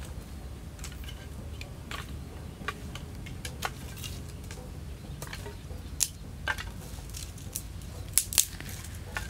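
Dry twigs and sticks snapping and clattering as they are broken and laid as kindling: scattered sharp cracks, the loudest about six seconds in and two close together just after eight seconds.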